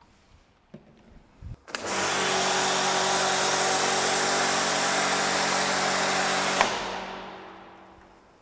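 Electric pressure washer running under load and spraying through a foam lance: a steady motor hum under loud spray hiss. It starts suddenly near two seconds in, then stops with a click about two-thirds of the way through and fades out over a second or so as the motor runs down.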